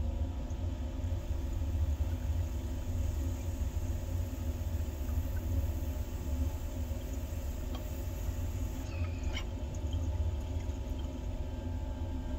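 Water bubbling steadily through a glass percolator bong during one long inhale, a deep continuous churning gurgle. A couple of light clicks come about nine seconds in.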